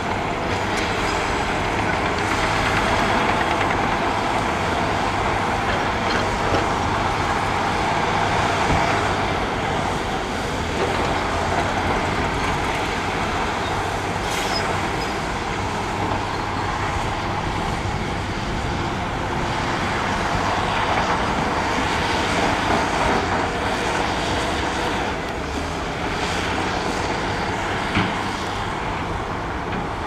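Heavy diesel earthmoving machinery, a dump truck and bulldozer working dirt, running steadily throughout, with a couple of brief sharp knocks.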